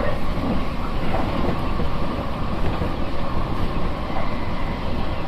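Nankai electric train running along the line, heard from inside the passenger car: a steady rumble of wheels on rails.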